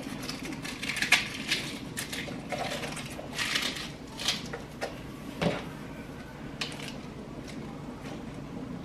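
Cut lettuce rustling as it is handled and dropped into a stainless steel mixing bowl, with scattered light taps and clinks of the bowl.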